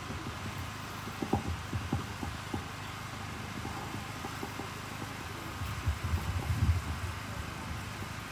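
A steady outdoor background hiss with a few short low thumps, then a denser run of low rumbling thumps a little past the middle.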